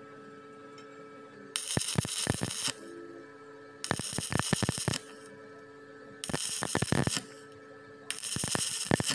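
Stick-welding arc crackling on a vertical joint in thin-walled steel square tube, struck and broken four times in runs of about a second each. A steady hum fills the gaps between runs.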